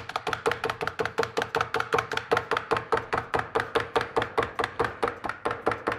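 Handheld needle-blade meat tenderizer punched rapidly into a venison steak, its blades and spring plunger clacking against a wooden cutting board in an even run of about five strokes a second.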